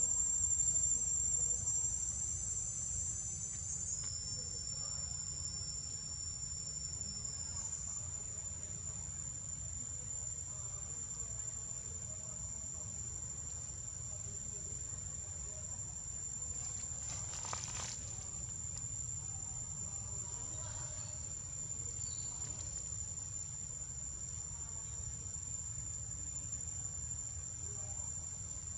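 Insect chorus: a steady, high-pitched ringing drone made of several overlapping tones, a little louder in the first few seconds.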